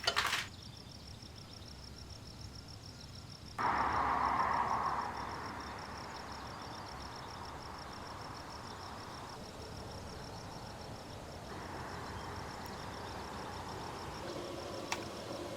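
An insect trilling steadily at a high pitch, over outdoor background noise that cuts in suddenly about three and a half seconds in.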